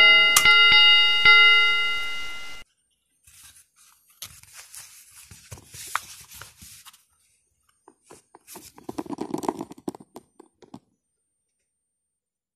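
A subscribe-button sound effect: a ringing bell chime with a few clicks, cut off abruptly about two and a half seconds in. After it come soft clicks and clacks of a compact Glock 26 pistol and its magazine being handled, with a short burst of clacks about two-thirds of the way through.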